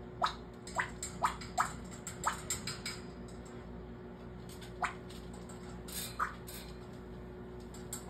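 African grey parrot making short, sharp popping noises with its beak and tongue: a quick run of them in the first three seconds, then three more around five and six seconds in.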